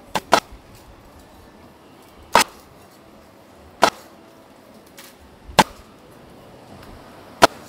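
Cleaver chopping crispy roast pork on a chopping block: six sharp chops, the first two in quick succession, then one every second and a half to two seconds.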